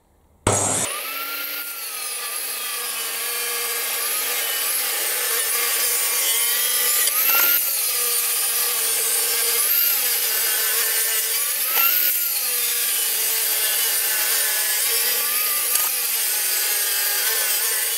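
Table saw running and ripping a wooden board. The pitch of the motor and blade sags briefly every couple of seconds as the wood is fed into the blade.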